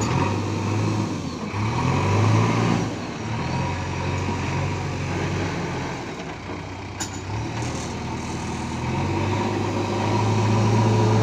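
JCB 3DX backhoe loader's diesel engine running while the backhoe digs, its note swelling about two seconds in and again near the end as the hydraulics take load. A single sharp click a little past halfway.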